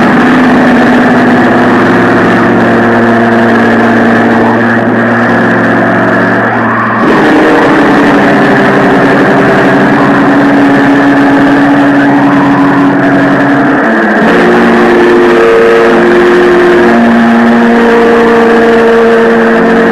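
Blackened noise music: a loud, unbroken wall of distorted noise over sustained droning tones, with little treble. The drones shift to new pitches twice, about a third and about two thirds of the way through.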